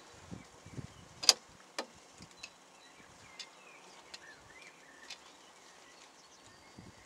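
Faint outdoor background with a sharp click about a second in and a second click half a second later, then a few fainter ticks and some short high chirps.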